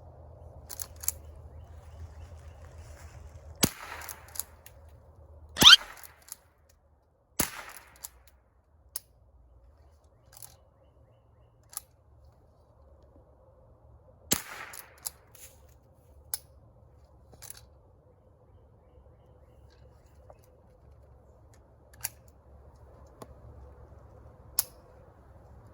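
Henry Classic lever-action .22 LR rifle firing single shots at irregular intervals, several seconds apart. The loudest four come in the first fifteen seconds, with fainter sharp clicks and cracks between and after them.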